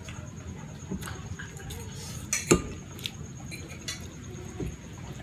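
Metal fork clinking and scraping against a ceramic plate of fettuccine, with a few sharp clinks, the loudest about halfway through.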